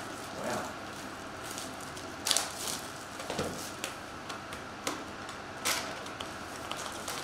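A cardboard trading-card hobby box being handled and opened, with foil card packs touched inside: a few scattered short rustles, scrapes and taps.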